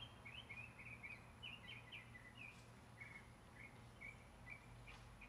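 Faint bird chirping: a quick string of short high chirps, several a second, over a low steady hum.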